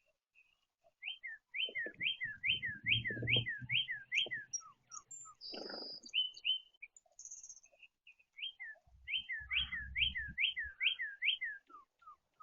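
A songbird singing two runs of a fast, repeated two-note phrase, about three phrases a second: a sharp upslurred note followed by a lower downslurred one. A few descending single notes trail after each run.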